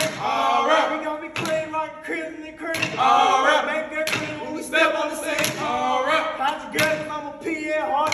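Several men chanting in unison, with sharp knocks of canes and steps on a wooden stage floor falling about every one to one and a half seconds in a cane-stepping routine.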